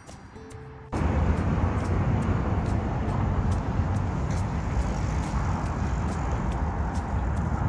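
Outdoor traffic noise cuts in abruptly about a second in: a loud, steady rumble with wind on the microphone. Faint background music continues beneath it.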